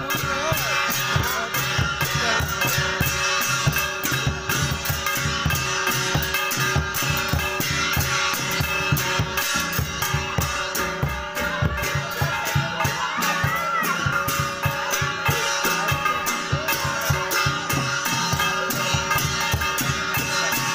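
Kinnauri nati folk dance music: a steady drum beat under long held melodic tones.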